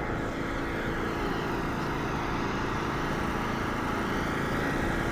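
A motor vehicle engine running steadily, mixed with street noise.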